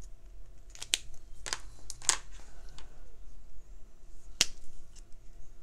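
Several sharp plastic clicks, the loudest about two seconds in and another near four and a half seconds: Marabu Fineliner Graphix pen caps being snapped on and off as the pens are swapped and set down.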